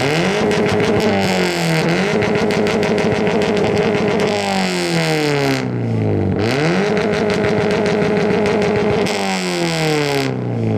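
Car engine, a Subaru at a boxer-engine show, revved hard through its exhaust: it climbs quickly to high revs, is held there, dips and climbs again, and falls away slowly near the end. A loud competition rev that meters about 100 dB.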